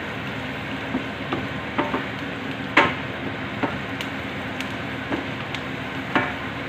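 Garlic and onion sizzling in oil in a stainless steel pan, stirred with a wooden spatula that scrapes and knocks against the pan every second or so. The loudest knock comes about three seconds in.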